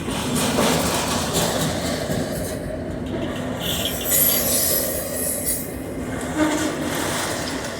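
Railroad cars rolling past on the track, a steady rumble of wheels on rail, with a short high wheel squeal about three and a half seconds in and a brief hissing screech a little later.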